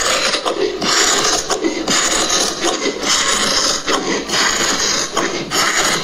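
Large red-handled dressmaking shears cutting through maroon fabric along a chalk line, a crisp scraping crunch repeated in strokes about once a second.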